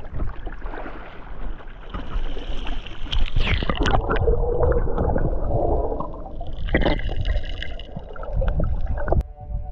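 Water splashing and gurgling as a snorkeler slips into a fast-running reef current, then the muffled rushing and bubbling of the water with the microphone under the surface. Music starts just before the end.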